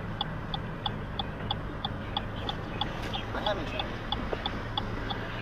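Rapid electronic beeping, about three short beeps a second, over a low steady engine hum.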